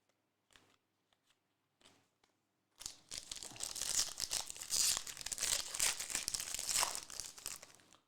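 A trading card pack wrapper being torn open and crinkled, heard as a dense crackling rustle. It starts about three seconds in, after a few faint ticks, and runs for about five seconds.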